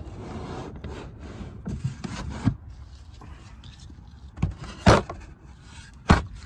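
Tools being handled and shifted in a wooden truck-bed drawer: rubbing and rustling for the first couple of seconds, then a few sharp wooden knocks in the last two seconds.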